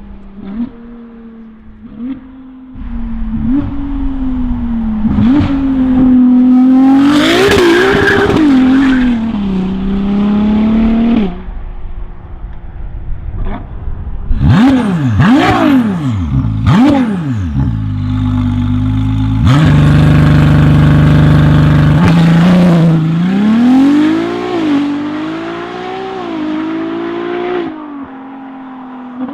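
Ferrari 296 GTB's twin-turbo V6 through a NOVITEC valved exhaust with the catalysts removed, revved repeatedly: it rises from idle, gives several quick sharp blips, holds a steady high rev for a couple of seconds, then falls back to idle near the end.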